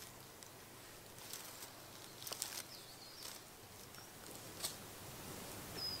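Quiet outdoor ambience: scattered soft rustles and clicks, with a couple of brief high chirps, one a little over two and a half seconds in and one near the end.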